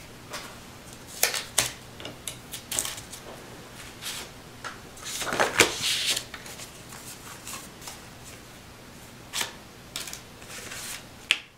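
Cardstock pages being handled on a cutting mat: scattered paper rustles and light taps as sheets are lifted, slid and set down, with a longer paper swish about five seconds in.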